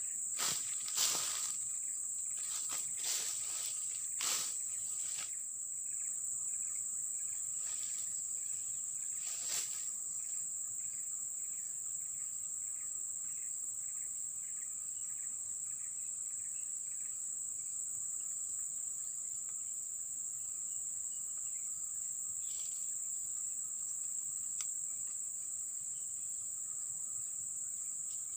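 Steady high-pitched drone of tropical forest insects, with a fainter lower hum beneath it. There are a few short clicks and rustles in the first five seconds and one more near ten seconds, and a run of faint short chirps at about two a second for several seconds in the middle.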